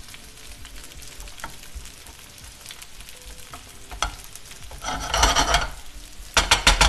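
Sliced onions and bacon frying in a pan, sizzling steadily while a wooden spatula stirs and scrapes them against the pan. There are two louder bursts of scraping and sizzling, about five seconds in and again near the end.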